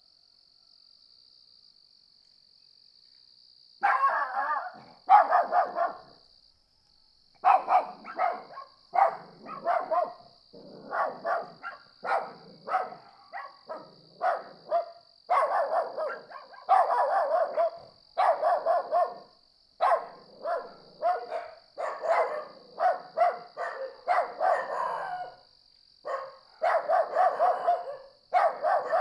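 Dogs barking in rapid, repeated volleys over a steady high trill of crickets. The barking starts about four seconds in and keeps on in clusters, with short pauses between them.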